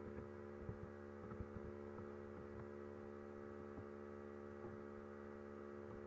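Steady low electrical hum with several even tones, with a few faint clicks in the first second and a half.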